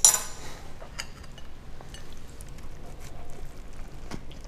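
Quiet handling of a soft-bun pulled pork sandwich as it is picked up and bitten into, with a few light clicks and ticks. A brief burst of noise comes right at the start.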